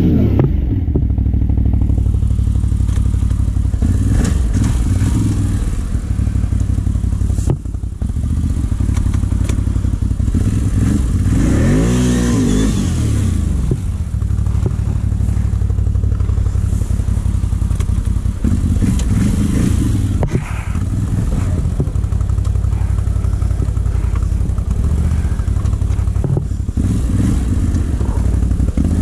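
CFMoto 850 XC ATV's V-twin engine revving as its wheels spin in deep snow, the machine stuck. The revs rise and fall several times, highest about halfway through.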